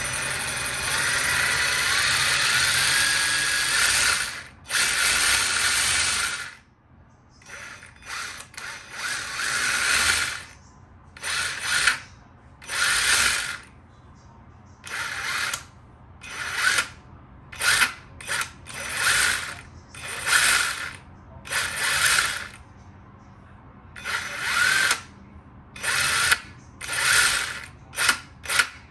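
Axial Ryft RC truck's electric motor and geared drivetrain whirring under throttle, first running steadily for about four seconds with the pitch rising, then in a string of short blips. The rear differential has been rebuilt and shimmed at its bearing and is spinning freely.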